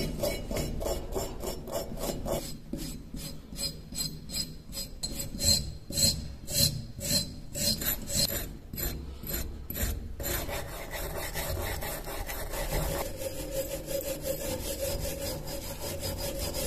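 A small hand tool rasping rust off a corroded steel knife, in repeated back-and-forth strokes. The strokes come quickly at first and are louder and more spaced around the middle, then blend into steadier, continuous scraping near the end.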